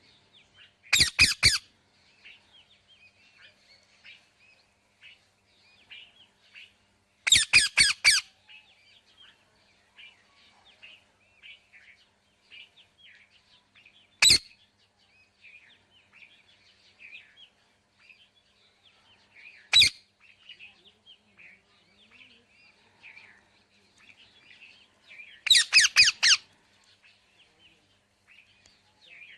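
Parrot squawking loudly in short rapid runs of four to six harsh calls, with single squawks between the runs, over steady faint chirping of other birds.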